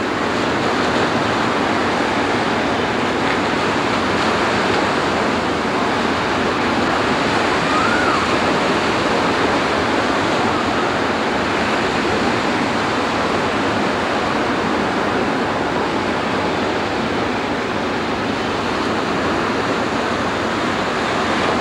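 Ocean surf washing onto the beach: a steady, unbroken rush of breaking waves.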